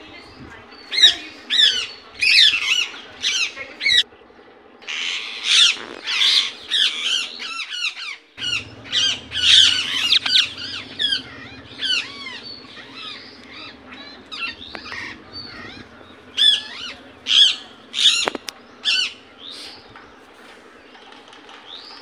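Indian ringneck parakeet making short, high-pitched calls in quick runs, with a short break about eight seconds in.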